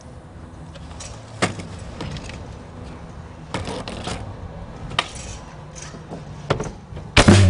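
Skateboard wheels rolling on pavement with a low rumble, broken by several sharp clacks of the board hitting the ground. Loud rock music cuts in near the end.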